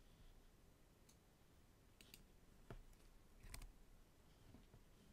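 Faint, scattered clicks of a computer keyboard and mouse as values are typed into fields, a handful of separate clicks with the loudest about three and a half seconds in.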